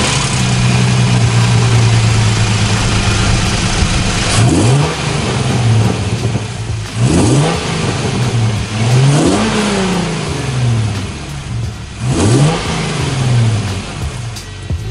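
Hyundai Genesis Coupe's 3.8 L V6 with aftermarket headers idling just after start-up. It is then revved in a string of quick throttle blips, with one longer rev near the middle, each falling back to idle.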